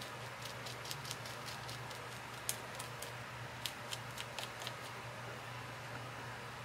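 Small, light, irregular clicks and taps of craft supplies being handled on a desk, stopping a little before the end, over a steady low hum.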